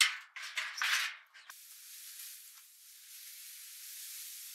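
Scraping and rattling of a rough wooden slab being dragged aside from a barn doorway, in three short bursts over the first second and a half, followed by a faint steady hiss.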